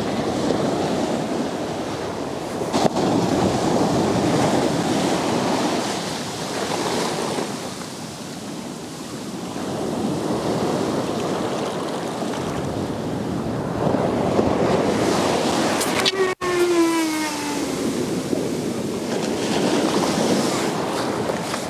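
Surf breaking on the beach, swelling and fading every few seconds, with wind on the microphone. About two-thirds of the way through, after a brief dropout, a short tone falls in pitch over about two seconds.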